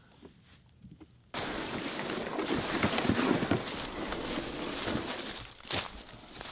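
A plastic game sled carrying a deer is dragged over dry fallen leaves, with footsteps crunching through the leaf litter alongside. The loud rustling and scraping starts abruptly about a second in and eases off near the end.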